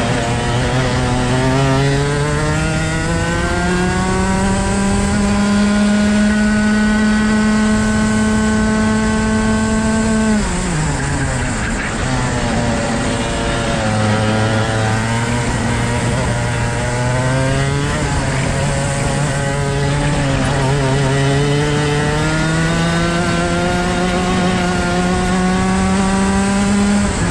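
Rotax Max 125cc single-cylinder two-stroke kart engine under racing load, heard onboard: the pitch climbs out of a corner, holds high along a straight, then drops sharply as the throttle closes about ten seconds in. It climbs again through the following corners, with a brief dip part way, and falls off right at the end.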